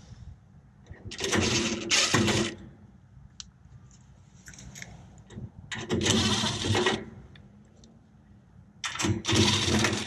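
Cordless power drill run in three short bursts of about a second each, backing out the screws that hold a panel on an air conditioner condenser unit.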